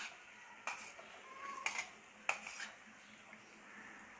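Steel spoon scraping and clinking against a steel bowl as chopped onion is tipped into a kadhai of hot oil: several sharp clinks, with a faint sizzle of the oil underneath.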